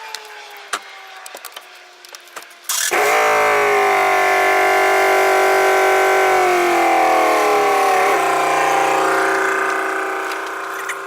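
A few clicks, then about three seconds in a power tool's electric motor starts up loud and runs steadily for some eight seconds. Its whine dips in pitch midway as it comes under load, then partly recovers before easing off near the end.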